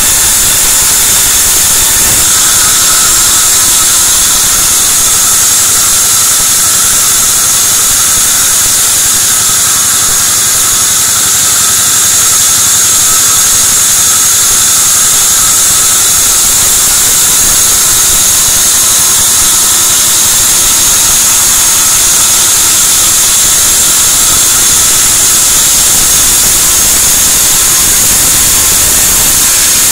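Sawmill band saw running and ripping white teak (gmelina) planks lengthwise into boards: a loud, steady machine noise with a high-pitched hiss.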